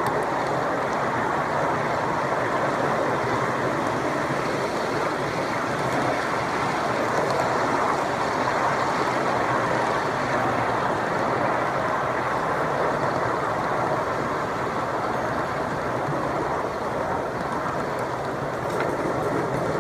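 1-inch-scale ride-on miniature train rolling along its track: a steady noise of the cars' wheels running on the rails.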